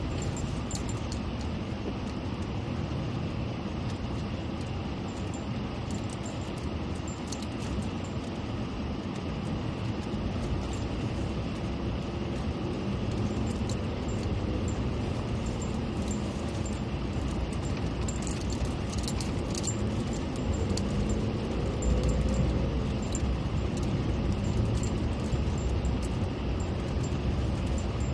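A vehicle on the move: steady engine and road noise with frequent light rattles and clicks, a little louder from about twenty seconds in.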